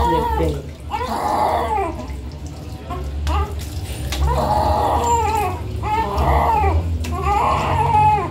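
Newborn baby crying: about five separate cries, each rising and then falling in pitch.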